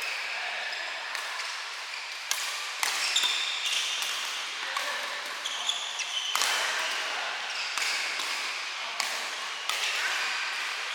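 Badminton rally: rackets striking the shuttlecock in sharp cracks and shoes squeaking on the court, over a steady hiss of rain.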